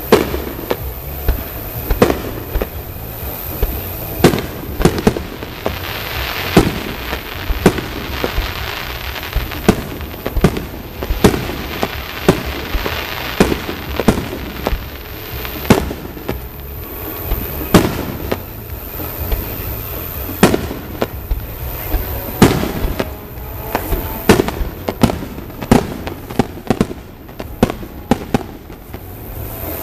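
Aerial fireworks display: a steady run of sharp bangs from bursting shells, about one every second, with a stretch of dense hiss between about six and fourteen seconds in.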